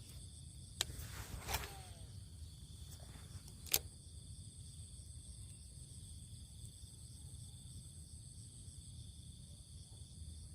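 Steady, faint chorus of crickets and other insects, a continuous high drone. A few sharp clicks cut through it, the loudest about four seconds in.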